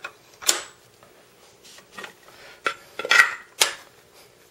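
Sharp metal clicks and clacks of a Stoeger Condor Outback 12-gauge over-under shotgun being reassembled, its barrels and wooden forend fitted back onto the receiver. The loudest clack comes about half a second in, with a quick run of clacks near the end.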